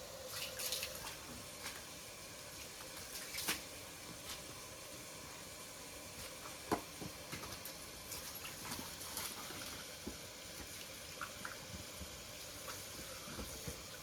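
Water running and splashing, with scattered clicks and knocks, the sharpest about three and a half and almost seven seconds in.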